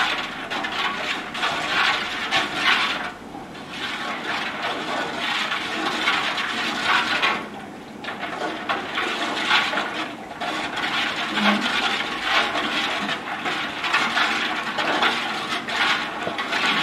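Wooden paddle stirring acorns in a watery clay slurry in a copper cauldron over the fire: liquid sloshing in surges, with a few short pauses.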